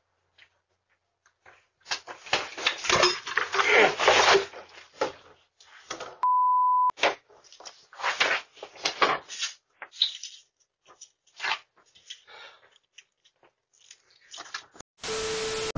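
Scuffs, rustles and knocks of a person moving and handling things close to a doorbell camera's microphone, heaviest in the first few seconds, with one steady beep lasting under a second about six seconds in.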